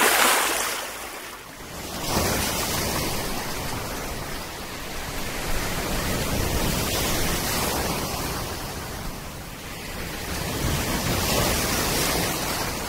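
Sea waves breaking and washing in the surf: a steady rushing hiss that swells and eases, loudest at the very start.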